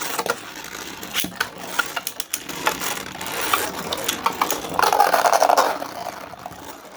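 Two 3D-printed Beyblade spinning tops whirring and scraping as they spin and grind against each other in a plastic stadium, with many sharp clicks as they collide. The rattling is loudest a little past halfway.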